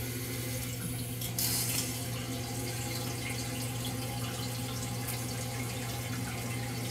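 Water hissing through the fill valve into the tank of a newly installed American Standard Optum VorMax toilet after the supply valve is reopened. The tank is refilling. The hiss is steady and grows brighter about a second and a half in.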